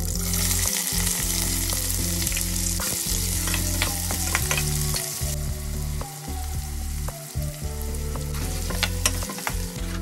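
Chopped red onions hitting hot oil with fennel seeds in a stainless steel pot and sizzling loudly. The sizzle eases about halfway through. Near the end a metal spoon stirs and clicks against the pot.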